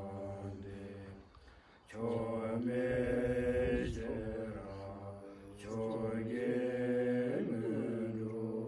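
Group of Buddhist monks chanting a prayer together in low, drawn-out unison phrases, breaking off briefly about a second and a half in and dipping again just past five seconds.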